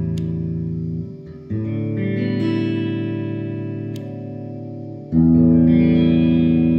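Yamaha Revstar Standard electric guitar strummed through an amplifier, each chord left to ring out and fade. The strings are damped about a second in and a new chord is struck, and another chord rings out about five seconds in.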